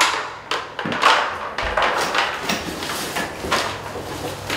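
Handling noise as an EZ Shelf kit is unpacked: plastic shelf supports are set down, and paper and packaging rustle and scrape in a cardboard box, in a series of irregular scratches and knocks.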